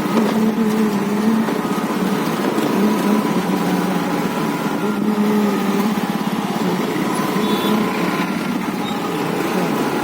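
Hero Destini 125 scooter engine running on the move, its pitch rising and falling a little with the throttle, over steady road and wind noise.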